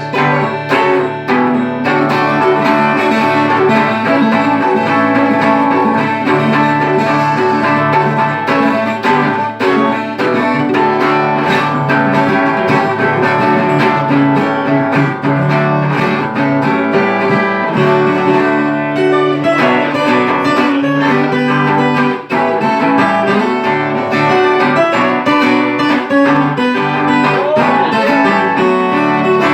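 Violão (Brazilian acoustic guitar) and viola caipira, the ten-string Brazilian folk guitar, playing an instrumental passage together, with no singing.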